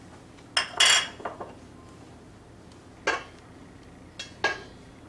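Kitchen utensils or ingredient containers clinking and knocking against a mixing bowl as dry ingredients are tipped in. There is a cluster of knocks about a second in, a single knock at about three seconds, and two more near the end.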